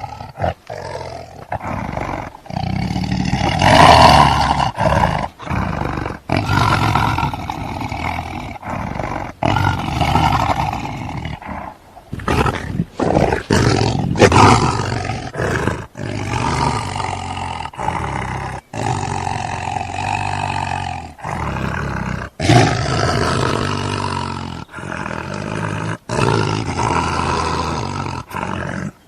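Lions roaring and growling, one call after another, with abrupt cuts between clips.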